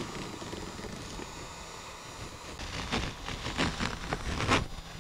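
Heat gun blowing with a steady hiss, then the old nylon kayak skin pulled free of the wooden frame in a series of short rips from about halfway in.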